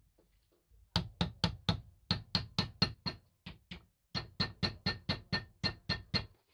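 Hammer tapping in quick, even blows, about four a second, with a brief break about three seconds in: pins being driven into a wooden knife handle.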